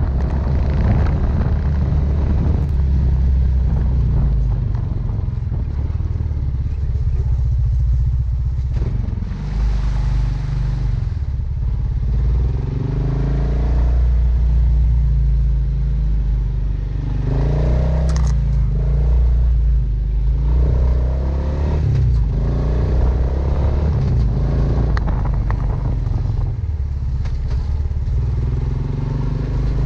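An ATV engine running as it rides a sandy dirt trail, heard from on board, its pitch rising and falling as the throttle changes. Its body and rack clatter over the bumps, and about ten seconds in a short rush of noise passes over the microphone.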